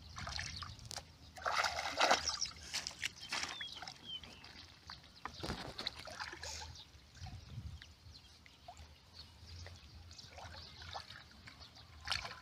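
Muddy water splashing and sloshing irregularly as hands grope through a shallow pool and along its grassy bank, loudest about two seconds in.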